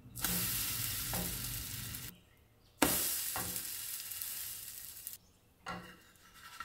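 A slice of egg-soaked bread sizzling hard in hot oil in a frying pan. The sizzle stops abruptly about two seconds in, then starts again with a sharp click just before three seconds and dies away past five seconds, with a short burst near the end.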